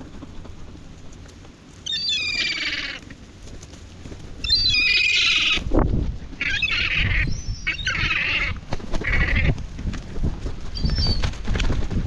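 Gulls calling over and over in harsh, wavering squeals, several calls overlapping in the middle, with wings flapping close by and buffeting the microphone toward the end.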